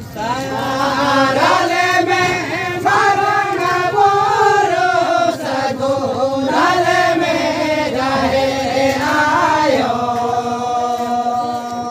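A man singing a Santali langre song in a wavering, chant-like melody over a harmonium's sustained notes. About ten seconds in the voice stops, and a steady held harmonium chord carries on.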